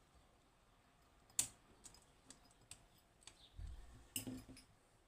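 Small hard clicks and clacks of a metal lever lock and tools being handled, with one sharp click about a second and a half in and a dull low knock followed by another clack near the end.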